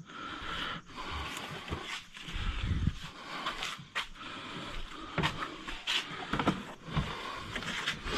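Rustling and scattered light knocks of gear being shifted and packed into place.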